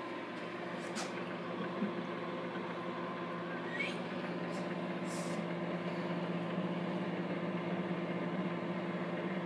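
Microwave oven running, heating food, with a steady electrical hum. A few short taps and rustles come near the start, about a second in and about five seconds in.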